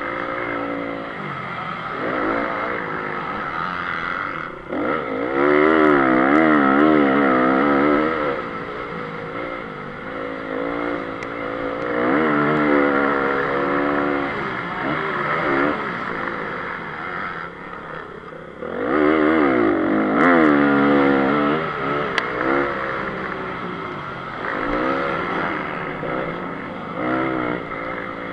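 Honda CRF250 single-cylinder four-stroke motocross engine heard from a camera on the bike, revving hard and falling back again and again as the throttle is worked over the track. The throttle shuts briefly about five seconds in and again around eighteen seconds, then the engine comes back loudest right after each drop.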